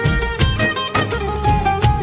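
Instrumental interlude of a Bollywood film song: melodic instruments over a steady percussion beat, with no singing.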